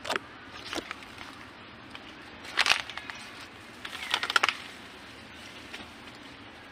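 A macaque biting and tearing into a piece of fruit with its peel on: short crackly crunching bursts, one at the start, a weaker one just under a second in, the loudest a little past two and a half seconds in, and a rapid cluster around four seconds in.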